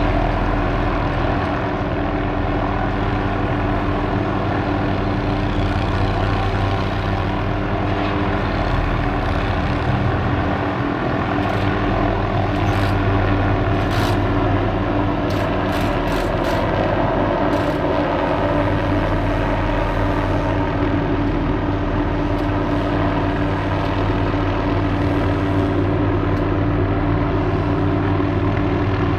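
MD 500D helicopter running steadily, a constant pitched engine-and-rotor sound with a low hum, with a few brief sharp clicks in the middle.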